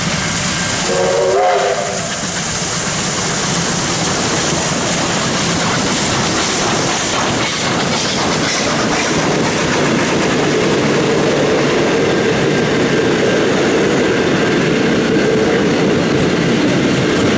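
Double-headed Victorian Railways R-class steam train passing, with a short steam whistle blast about a second in, then a long rake of passenger carriages rolling by, wheels clicking over the rail joints.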